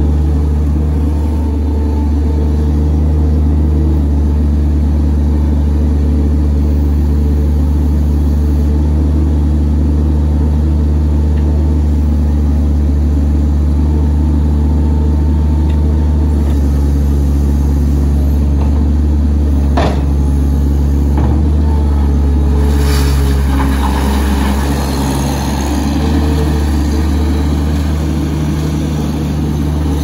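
New Holland LS150 skid steer loader's diesel engine running steadily at working speed as the machine drives and turns. Its note shifts about halfway through, with a short rising squeal about two-thirds in and some rattling after it.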